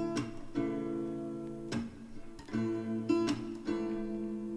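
Background song in an instrumental passage between sung lines: guitar chords strummed and left ringing, re-struck several times.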